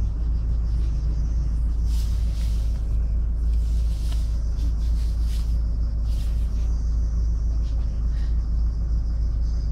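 City bus running, a steady low rumble of engine and running gear. A few short hissing noises come through between about two and six and a half seconds in.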